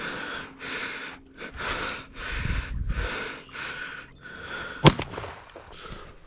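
Rapid, heavy breathing, then about five seconds in a single sharp shotgun shot: the finishing second shot on a wounded turkey gobbler.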